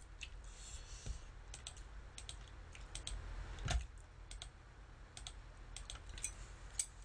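Typing on a computer keyboard: irregular key clicks, with one louder knock about halfway through.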